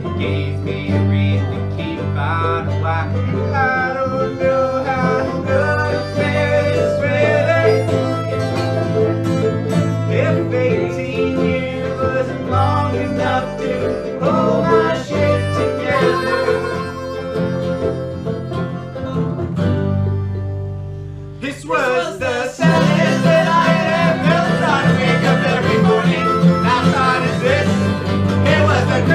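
Acoustic bluegrass-style string band playing, with banjo and acoustic guitars. About three-quarters of the way through the music dips briefly, then comes back fuller and brighter.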